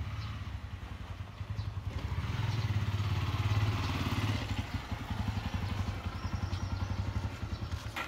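An engine running with a fast, low throb, growing louder around the middle and easing off again.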